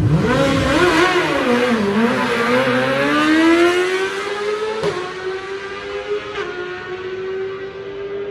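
Sport motorcycle launching down a drag strip: the engine revs up sharply, its pitch dipping at two quick upshifts in the first two seconds, then climbs steadily in a long pull. From about five seconds in a steady, unchanging engine note remains.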